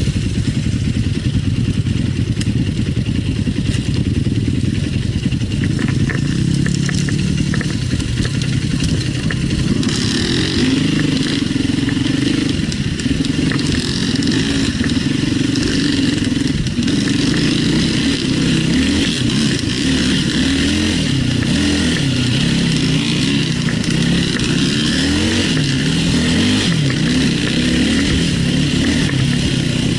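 Enduro dirt bike engine running under load on a climb, revs rising and falling over and over. From about ten seconds in it runs at higher revs, with frequent quick changes in pitch.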